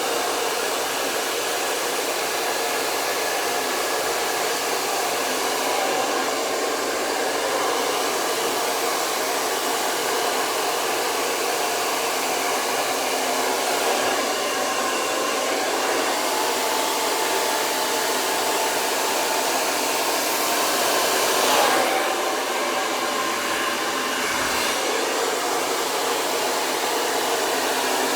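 Nume signature hair dryer running steadily at a constant speed, blowing air through hair held on a round brush, with a brief louder swell a little past the middle.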